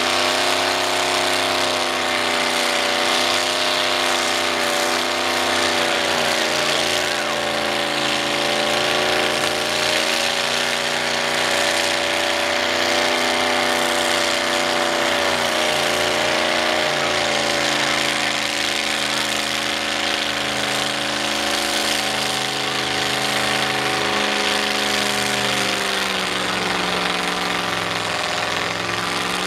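Cadillac V8 engine of an old International pickup mud truck running steadily at low speed, its pitch drifting slowly up and down and dipping briefly near the end.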